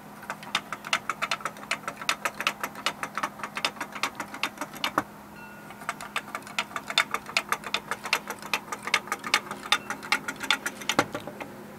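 Wooden hopping-kangaroo toy hopping down a sloped plywood track, its pivoting leg piece tapping the wood in a fast, even run of light clacks, about five a second. The run ends with a single knock about five seconds in, and a second run of clacks starts about a second later.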